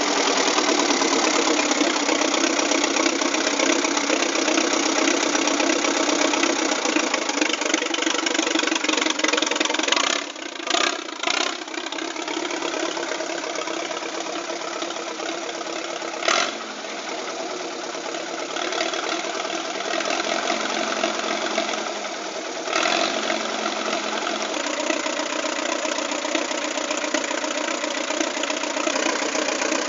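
Restored 1951 Case D tractor's four-cylinder engine running at a steady pace as the tractor is driven, with a few brief breaks in the sound and a slightly lower level after about ten seconds.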